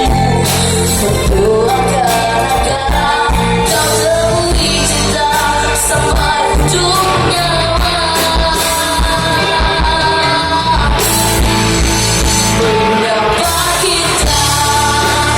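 Pop song played with band accompaniment and a sung melody line held in long, gliding notes.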